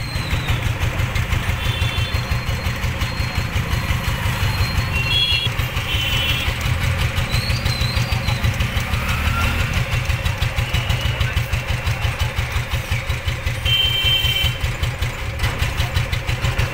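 Vehicle engine idling, heard from inside the vehicle, with a fast, even pulse that holds steady throughout. A few short high beeps sound over it.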